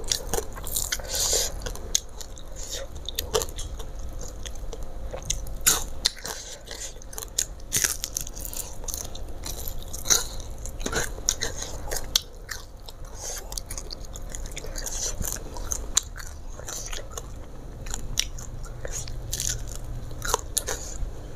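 Someone chewing and biting into fried tilapia (mujair) eaten by hand, with crunching and many irregular sharp clicks throughout.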